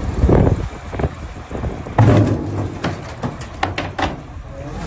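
A wheel loader's steel bucket slamming down onto an engine block sitting on a truck's hood: two heavy metal crashes about two seconds apart, then a quick run of sharp cracks and snaps as the bucket crushes into it.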